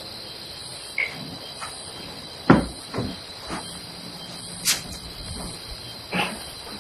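Crickets chirping steadily in a night-time background, with about five scattered knocks. The loudest knock comes about two and a half seconds in.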